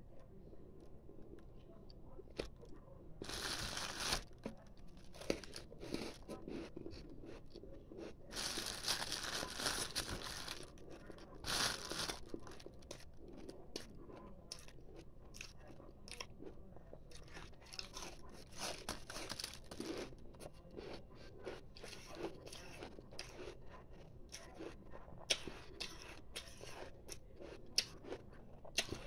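Crunching bites and chewing of a frosty chunk of refrozen ice, with louder bursts of crunching about 3, 9 and 12 seconds in and softer chewing clicks between.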